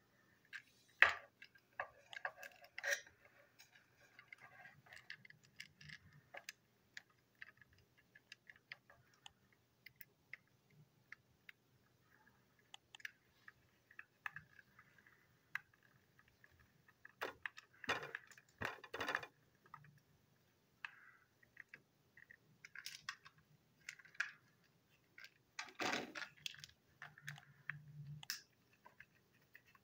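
Small screwdriver working at the screws of a TrackMaster toy van's plastic chassis, with scattered clicks, scrapes and rattles of the plastic parts being handled; the loudest clusters come about a second in, around the middle and near the end.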